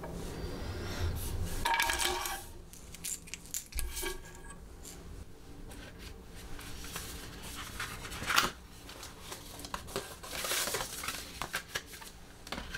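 Hands handling small accessories and cardboard packaging: light clinks over the first two seconds, then scattered clicks and taps, a louder knock about eight seconds in, and cardboard boxes sliding and rustling toward the end.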